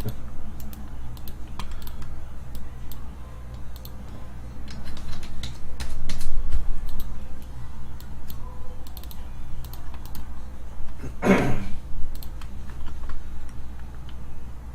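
Scattered clicks of typing on a computer keyboard and clicking a mouse, over a low steady hum, with a short vocal sound about eleven seconds in.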